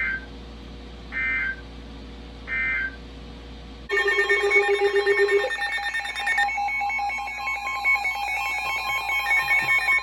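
Three short warbling data bursts of an EAS end-of-message code. About four seconds in, a louder electronic alert tone with several pitches starts, pulsing rapidly.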